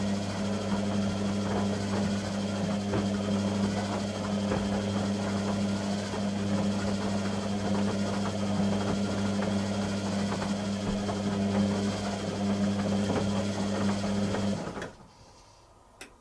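Beko WTG620M1 washing machine running with a steady electric hum, which cuts off suddenly near the end, followed by a single click.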